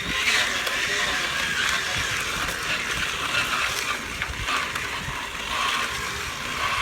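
Bicycle being ridden with a plastic water bottle fitted against the wheel spokes, the spokes striking the bottle to make a steady, noisy buzz meant to imitate a dirt bike.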